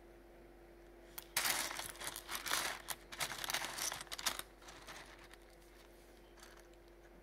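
Plastic bubble wrap crinkling and crackling under fingers while rough opal pieces are handled on it, for about three seconds, over a faint steady hum.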